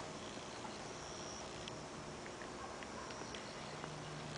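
Quiet outdoor background: a steady low hum and haze, with a few faint, brief high chirps and small ticks.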